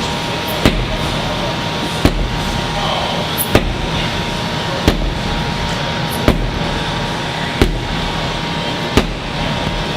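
Sledgehammer striking a large tire and bouncing off it in a steady rhythm, seven blows about a second and a half apart, over a steady background hum.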